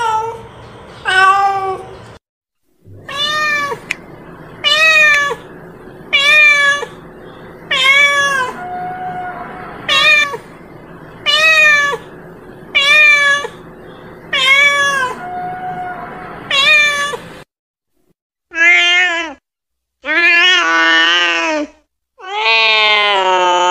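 Domestic cat meowing over and over: more than a dozen short meows about a second apart, each rising and then falling in pitch. Near the end come a few longer, louder meows, the last one long and drawn out.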